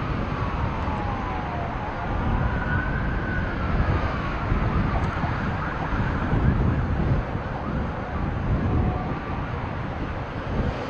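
Emergency vehicle siren wailing, its pitch sliding slowly down and up again, fainter in the second half, under heavy wind buffeting on the microphone.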